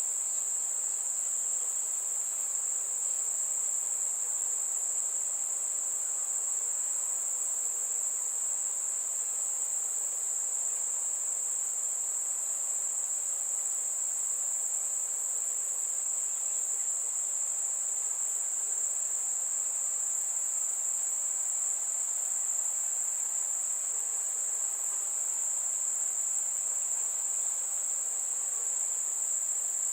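Night chorus of crickets: a steady, unbroken high-pitched trill that neither pauses nor changes.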